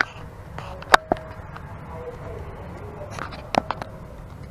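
Paper pages of a spiral-bound document being handled and turned on a counter, with a few sharp clicks and taps: a pair about a second in and a cluster around three and a half seconds.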